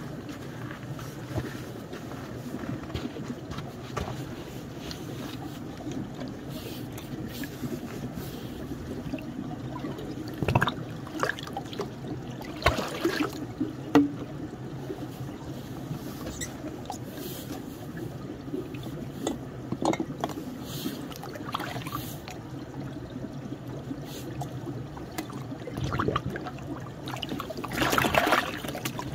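Small stream trickling steadily, with a few scattered knocks and clicks as bottles are handled at the water's edge. Near the end, water poured from a bottle splashes into the stream.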